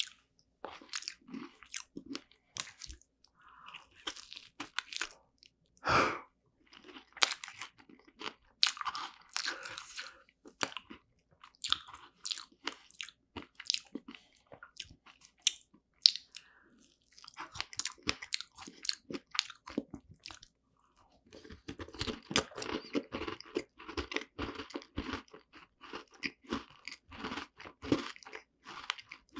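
Close-miked chewing of strawberry rare cheese tart: wet mouth sounds and irregular crisp crunches, thickest over the last several seconds.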